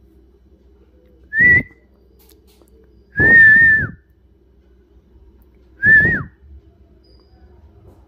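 Alexandrine parakeet whistling three times, each a clear high note: a short one, then a longer held one, then a short one that drops in pitch at the end.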